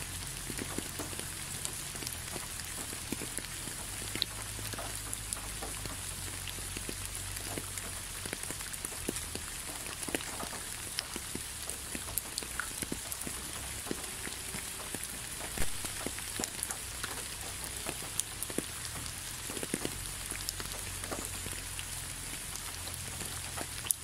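Steady rain falling, an even hiss with many scattered drips and patters hitting a wet surface.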